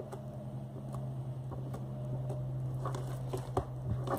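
Slime being pressed and worked by hand, giving off scattered small wet clicks and crackling pops as trapped air bubbles burst, a few sharper clicks in the second half, over a steady low hum.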